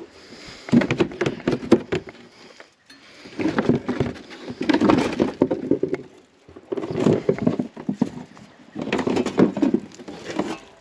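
Plastic front fender-well liner of a Kia Telluride being flexed and worked out of the wheel well. It scrapes and crackles in four bouts of a second or two each.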